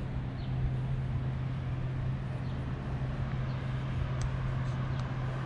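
Road traffic noise: a steady, even rumble of passing vehicles with a continuous low hum underneath.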